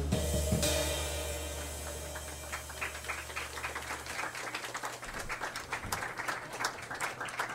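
The end of a guitar-and-bass song: its last low notes sustain and fade away, followed by a run of faint, irregular clicks.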